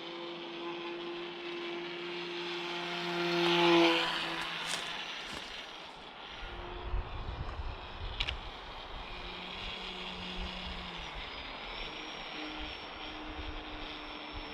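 Whine of a small RC plane's brushless electric motor and propeller flying overhead, growing loud in a close pass about four seconds in and then fading to a faint drone as it flies off. A low rumble comes in for a couple of seconds after the pass.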